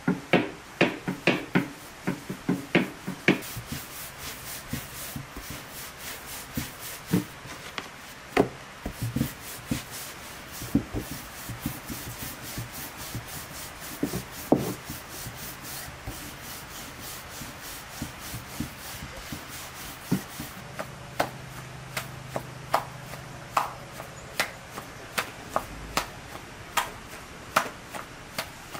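Long wooden rolling pin rolling dough out thin on a floured wooden board: a dry rubbing as the pin rolls, broken by many sharp wooden knocks and clicks where the pin taps and clatters on the board, thickest at the start and again in the last third.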